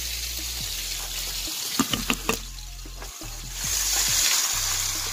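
Ribeye steaks sizzling in a frying pan as a steady hiss, with a few sharp clicks and knocks about two seconds in. The sizzle grows louder near the end.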